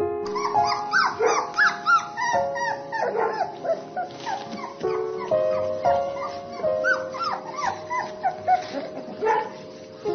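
Newborn puppies squeaking and whimpering: many short rising-and-falling cries, a few each second, over background music with held chords.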